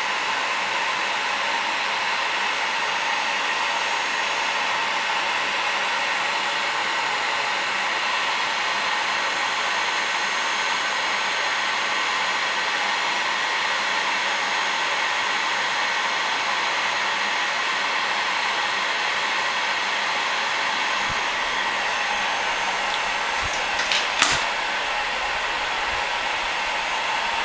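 Electric heat gun running steadily, its fan and hot-air stream making an even rushing noise. Near the end come a few sharp clicks and one louder knock.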